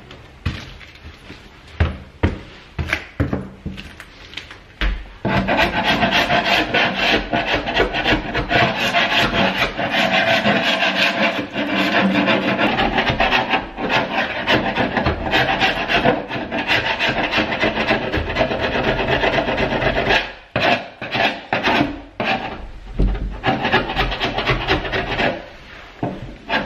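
Sharp wood chisel scraping old paint off a hardwood door panel in quick repeated strokes. A few separate scrapes at first, then about fifteen seconds of fast, continuous scraping, then broken strokes again near the end.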